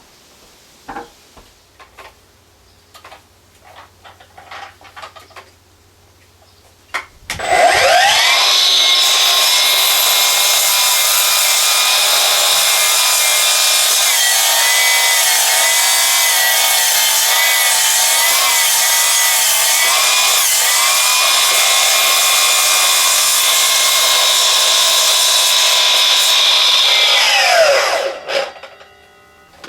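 A 12-inch power saw starts up about seven seconds in and cuts through a hand-hewn log for some twenty seconds. Its pitch wavers under load midway through the cut, and it winds down near the end. Before it starts there are a few light knocks and clicks.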